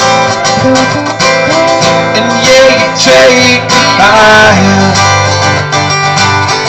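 Live music from two guitars strummed in a steady rhythm, part of a song performed by a duo.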